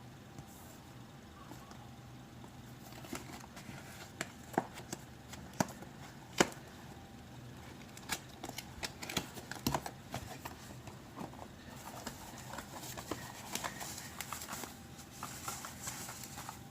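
Irregular clicks, taps and light knocks of a boxed keyboard and its packaging being handled, with a soft rustle of packaging in the second half.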